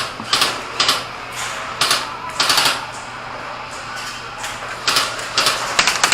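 Airsoft electric guns firing in several short bursts of rapid shots, with a busier run of fire near the end.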